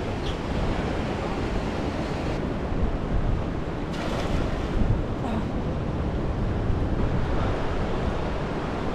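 Steady rush of wind buffeting the microphone over the wash of the sea.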